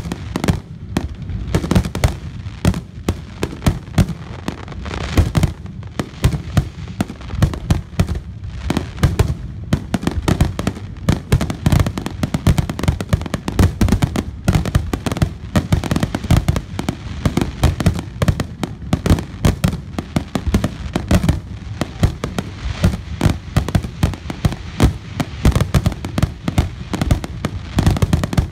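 Fireworks display: a loud, dense barrage of aerial shell bursts, several bangs a second without a break, with many shells going off at once.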